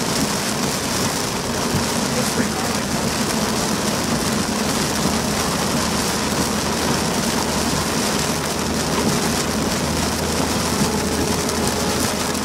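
Rain on a car's roof and windshield over steady road and engine noise, heard inside the cabin.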